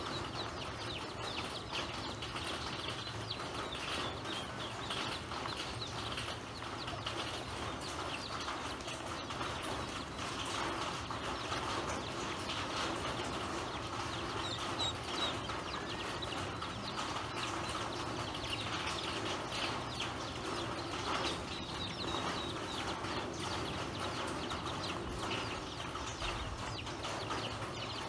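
Ducklings pecking and dabbling at grain on the floor of a plastic basin: a steady stream of many small bill taps, with occasional brief high peeps.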